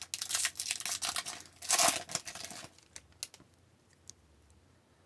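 A foil trading-card pack wrapper crinkling and tearing as it is ripped open, loudest about two seconds in, then a few faint clicks.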